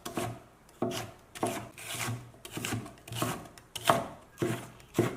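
Kitchen knife slicing bok choy stalks into fine shreds on a wooden cutting board, one steady stroke about every 0.6 seconds, each a crisp cut ending on the board.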